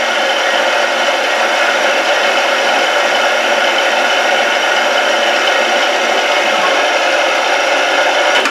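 APMT 1003 indexable carbide end mill on a CNC mill, taking a finishing pass in steel at a slow 77 mm/min feed. A loud, steady cutting whir with many fine whining tones.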